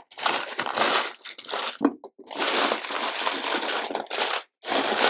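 Hands rummaging through a pile of loose LEGO bricks, the small plastic pieces clattering and rattling against each other in long stretches with two brief pauses, while searching for a particular part.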